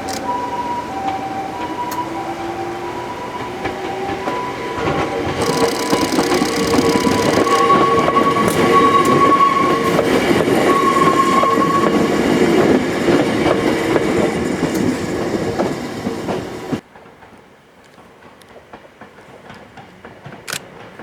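A Hakone Tozan Railway 2000-series electric train passing close by, wheels clattering on the rails, with a squeal from the wheels for a few seconds in the middle. A repeating two-tone ringing signal, like a level-crossing bell, sounds at the start. The sound cuts off suddenly near the end to a much quieter background.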